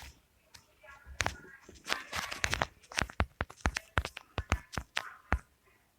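A rapid run of sharp, irregular clicks and taps, starting about a second in and stopping a little after five seconds.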